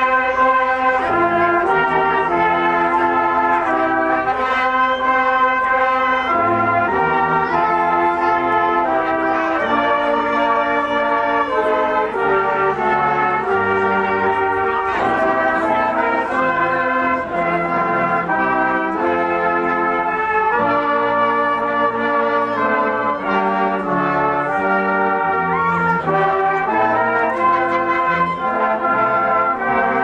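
Salvation Army brass band playing a tune in full, sustained chords.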